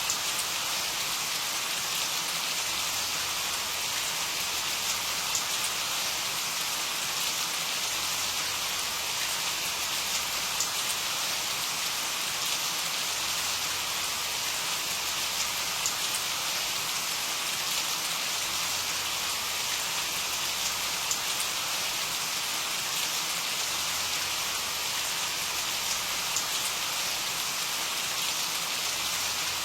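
Steady rain falling on a surface, a dense even hiss with scattered small drop ticks.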